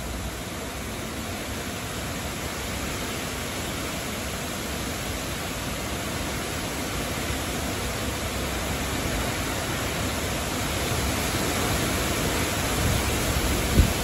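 Summer wind rushing through the leaves of a grove of trees, a steady rustling hiss that slowly grows stronger. Near the end, a gust hits the microphone with a brief low thump.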